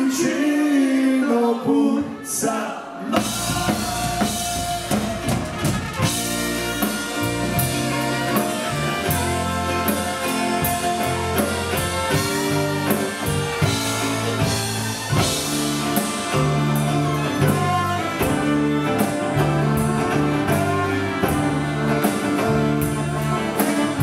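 Live Ukrainian dance band with accordion, saxophone, trumpet, drum kit and electric guitar. A voice sings briefly at the start, then about three seconds in the full band comes in with a steady drum beat and bass line.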